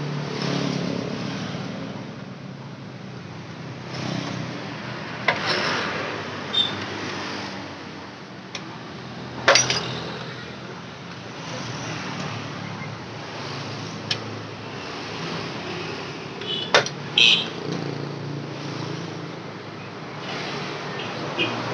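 Hand tools clinking on motorcycle bolts: a spanner and socket being fitted and turned, with several sharp metallic clicks, the loudest about nine and a half and seventeen seconds in. Under it runs a steady hum of vehicle traffic.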